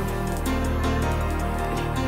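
Background music of held tones over a steady low note.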